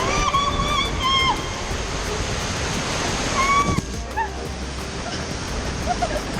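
Rushing, splashing water under a raft on a water-park raft slide, with a few short, high-pitched held calls over it near the start and about halfway through.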